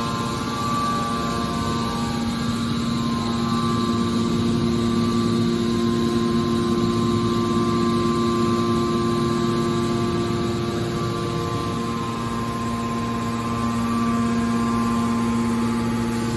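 An aluminum can baler's hydraulic machinery running: a steady hum with several fixed whining tones over a noisy rumble. The pitch does not rise or fall, and the low part of the sound shifts slightly about twelve seconds in.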